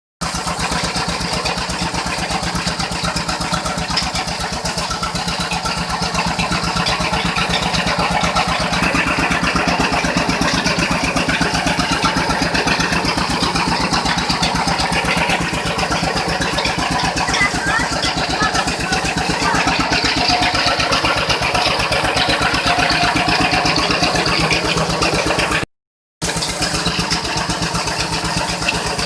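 Rice mill machinery running steadily, a loud mechanical drone with a fast, even pulsing. It cuts out for a split second near the end, then resumes.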